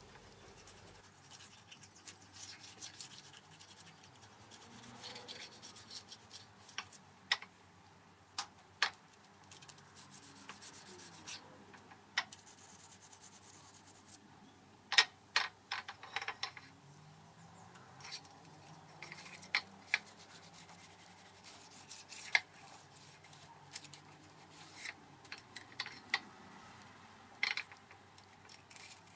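A sharpening stone rubbed by hand over a freshly machined metal surface to dress it smooth. Faint scraping with an irregular series of sharp clicks and knocks.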